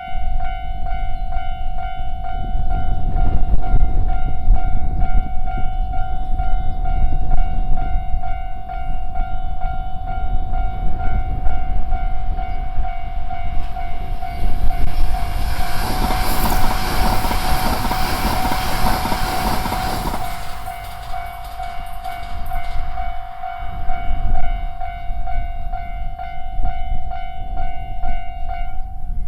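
Level-crossing warning bell ringing in steady repeated electronic dings, with an E3 series Shinkansen train rushing past over the crossing from about 14 to 20 seconds in. The bell stops near the end.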